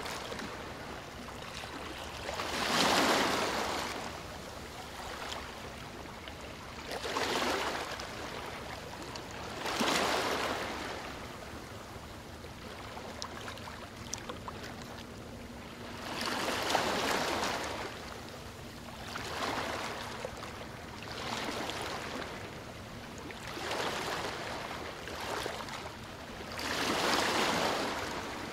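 Small sea waves washing and breaking at the shoreline close to the microphone, about eight rushing swells that each rise and fade over a second or two. A faint steady hum runs under the second half.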